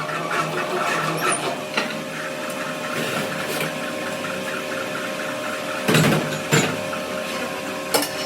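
A machine running with a steady hum, and a few sharp knocks about six seconds in and again near the end.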